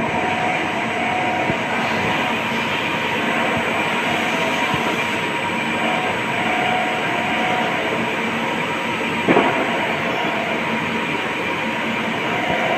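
Steady workshop machinery noise, with a faint whine that comes and goes and a single sharp knock about nine seconds in.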